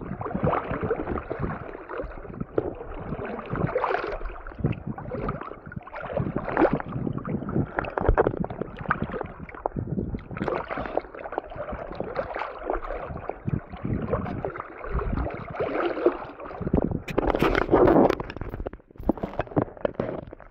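Water sloshing and splashing irregularly around a camera held at the water's surface in shallow water, muffled, with a louder stretch of splashing near the end.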